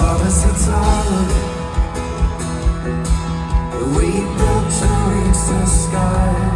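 Live folk-rock band playing with a steady drum beat, and a voice singing over it at times.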